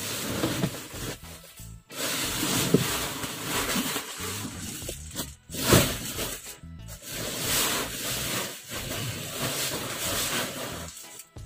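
Woven plastic feed sacks of about 50 kg being dragged and shifted over the vehicle's cargo floor, rustling and scraping in several bouts, with a sharper bump a little past halfway.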